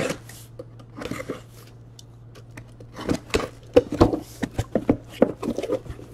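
Cardboard shipping case being handled and turned over on a desk: scattered knocks, scrapes and rubs of cardboard, sparse at first and busier from about halfway through, over a steady low hum.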